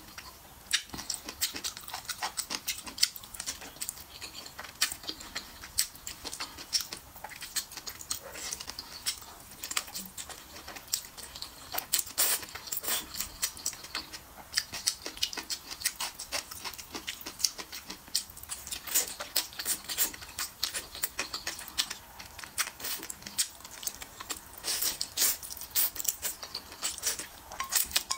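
Close-up chewing and slurping of sticky noodles (Wuhan hot dry noodles): a dense run of small wet mouth clicks and smacks, with louder slurps now and then.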